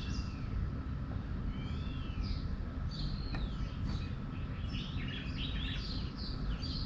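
Small songbirds chirping and calling at a feeding spot: quick chirps with a few arched, whistled notes, growing busier in the second half, over a steady low background rumble.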